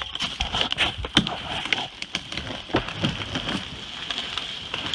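Felled walnut tree going over: many sharp cracks and snaps of wood and branches breaking as it falls through the surrounding trees.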